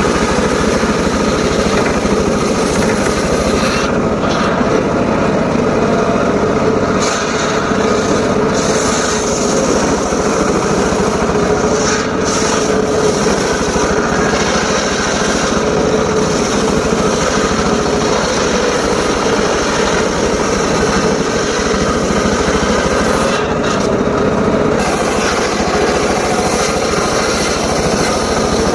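Homemade circular saw running loud and steady while cutting short teak wood, a continuous mix of motor drone and blade-on-wood noise with small shifts as the cut goes on.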